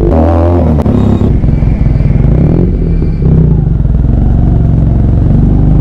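Benelli TNT 300 parallel-twin motorcycle engine running at low road speed under light throttle, a steady engine note.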